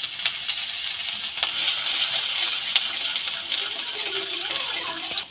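Chopped ginger sizzling and crackling in hot rice bran oil in an aluminium kadai, with scattered sharp pops. Toward the end a metal spatula stirs and scrapes it around the pan.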